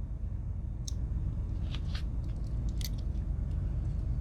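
A few faint, short metal clicks from a Victorinox Woodsman Swiss Army knife being handled, its tools worked on their backsprings, over a steady low background hum.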